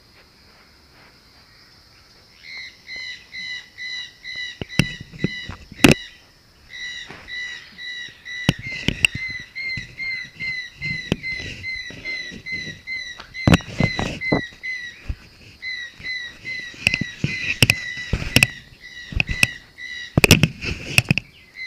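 An ocelot's face, nose and whiskers knocking and rubbing against a small camera's housing, giving sharp irregular knocks and rubbing. Behind them a bird repeats a short high chirp, about two or three a second, with a couple of short pauses.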